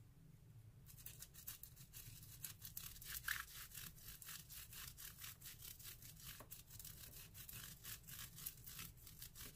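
A Gelatos crayon rubbed back and forth on bubble wrap: a faint run of quick rubbing strokes, starting about a second in.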